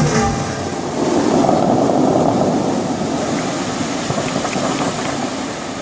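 Loud, steady rushing of the Dubai Fountain's water jets and falling spray. It swells about a second in, then slowly fades.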